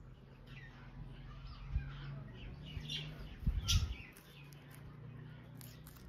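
Indian ringneck parrots making soft, short chirps, with a few dull low thumps around the middle.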